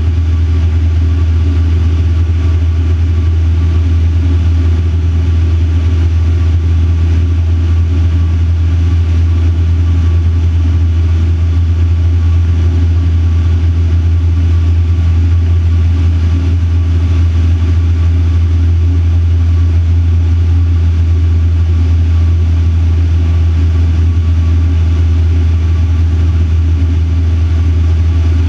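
Van's RV-4 light aircraft's piston engine and propeller running steadily in flight, heard inside the cockpit as a loud, even, deep drone.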